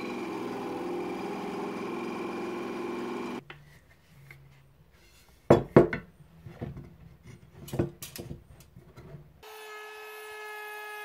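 A bench drill press runs steadily, boring into a length of softwood 3x2, and stops about three and a half seconds in. A few sharp knocks follow near the middle, then a cordless Makita trim router with a roundover bit starts up about nine seconds in and runs with a steady whine.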